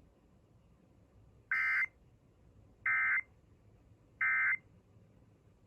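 Emergency Alert System end-of-message code: three identical short bursts of SAME digital data tones, each about a third of a second long and roughly 1.3 s apart. This is the EOM signal that marks the end of the alert, here closing a Required Monthly Test.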